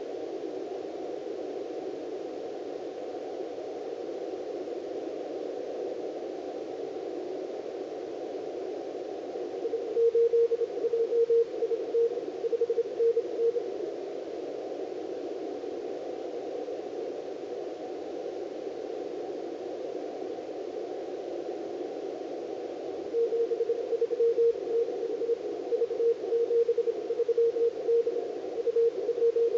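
Elecraft K3 transceiver receiving a Morse code (CW) signal on the 30-metre band, the station V73D, with a steady hiss of band noise through a narrow CW filter. The keyed tone comes in two stretches: about ten seconds in for some four seconds, and again from about 23 seconds on.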